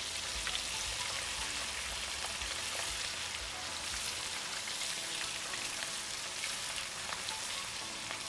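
Pieces of meat sizzling steadily in a frying pan, with a few faint clicks.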